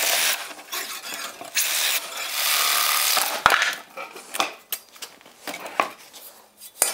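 Cordless reciprocating saw cutting through the bolts that hold an old iron patch strap, in three loud bursts over the first three seconds. Then come several sharp metal clanks and knocks as the cut-free iron strap is handled.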